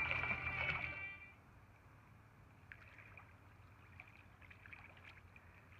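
A swimmer's arm strokes splashing and lapping faintly in pool water, with small splashes dotted through. Background music ends about a second in.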